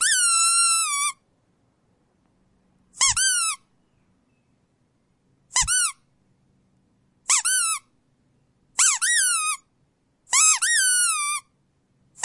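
Rubber squeak toy squeezed six times, a second or two apart, each squeak short and high with a quick rise and then a drooping, sad-sounding fall in pitch; the first and the last few run longer, close to a second each.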